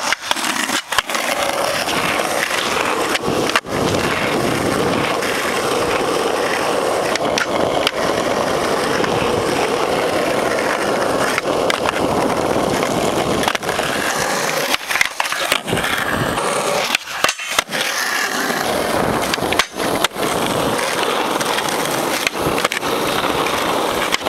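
Polyurethane skateboard wheels rolling over rough asphalt, a steady rolling rumble, broken a few times by sudden short breaks.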